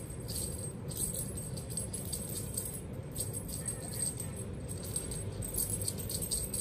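Small jingling rattle being shaken in irregular bursts about a second apart, over a low steady hum.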